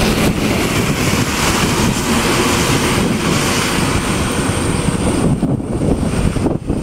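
Strong typhoon wind gusting and buffeting the microphone: a loud, unbroken rush of noise with a heavy low rumble, easing briefly a couple of times near the end.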